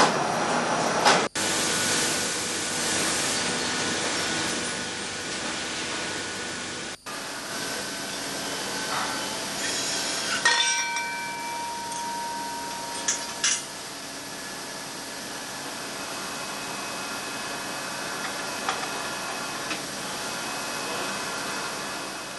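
Pneumatic valve grinding machine running while it grinds a MAN B&W exhaust valve: a steady hissing grinding noise with a hum under it. The sound cuts out for an instant twice within the first seven seconds, and a few sharp clicks come around the middle.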